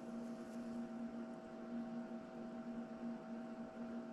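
Steady low electrical hum with a faint hiss: the background hum of an appliance or mains-powered equipment in the room.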